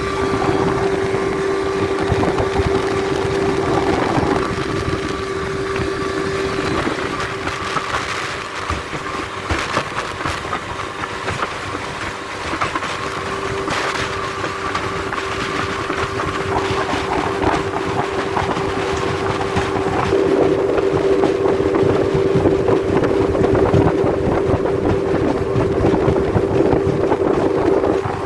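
Outboard motor running steadily with one even engine tone, the small boat's hull knocking on the chop now and then.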